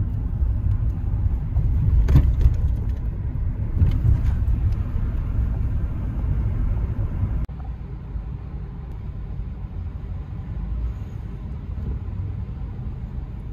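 Low rumble of a car's engine and tyres on the road, heard from inside the cabin while driving, with a couple of short knocks about two and four seconds in. The rumble drops suddenly to a quieter level about halfway through.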